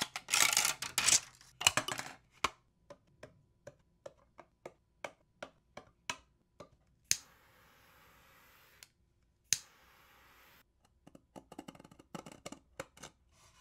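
Support material being peeled and snapped off a 3D-printed plastic part, with crackling at the start, then a run of sharp clicks as flush cutters snip away leftover plastic. Near the end comes light scraping as a deburring tool cleans up an edge of the print.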